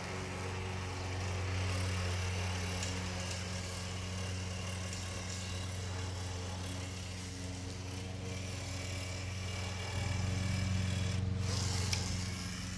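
Battery-powered caulking gun's motor running steadily as it pushes out a bead of windshield urethane adhesive; the hum grows a little louder about ten seconds in.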